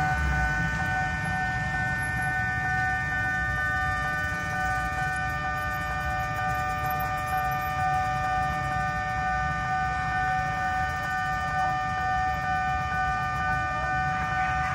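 Railway level-crossing warning alarm sounding a steady, unbroken electronic tone made of several pitches, over a low rumble of waiting traffic.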